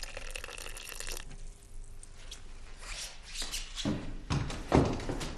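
Hot water running from a water dispenser's tap into a glass for about a second, then several dull thumps near the end, the loudest about three-quarters of the way through.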